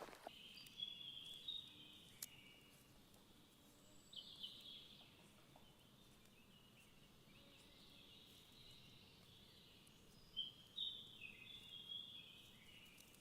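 Faint birdsong: high chirps and short trills in several bouts, loudest about four seconds in and again near the end, some phrases stepping down in pitch.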